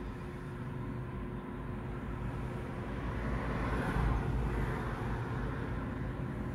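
Steady low hum of the car idling, heard from inside the cabin, with a pickup truck driving past in front that swells to a peak about four seconds in and fades away.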